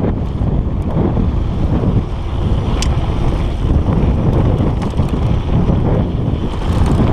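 Wind buffeting the microphone of a GoPro mounted on a mountain bike rolling over a gravel track, with the rumble and rattle of the ride, and one sharp click about three seconds in.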